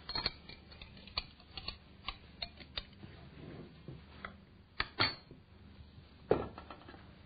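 Irregular clicks and knocks from handling a glass olive jar and its lid and a knife on a wooden cutting board, with a few louder knocks about five and six seconds in.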